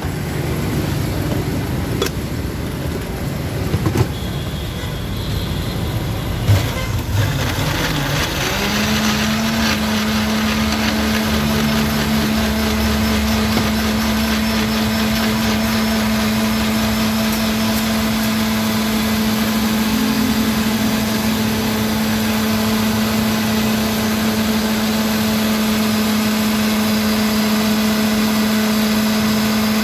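Glass-jar countertop blender blending papaya with milk into a shake. Its motor spins up, rising in pitch, about eight seconds in, then runs as a steady hum at speed. A few knocks and clatter come before it starts.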